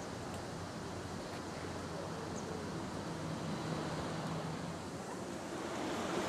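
Steady outdoor background noise with a faint low hum underneath.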